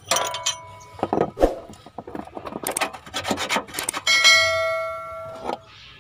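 Steel tools clinking and scraping around a car's underside as a tube socket wrench works an engine mount bolt. About four seconds in, a bright bell ding rings out and fades over a second and a half, matching the subscribe-button bell sound effect.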